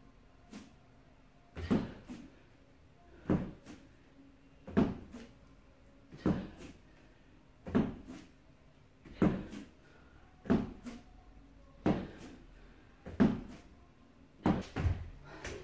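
Dull thuds on a rubber gym mat, about ten of them, roughly one every one and a half seconds, as the body and limbs are lowered and set down in repeated plank exercises.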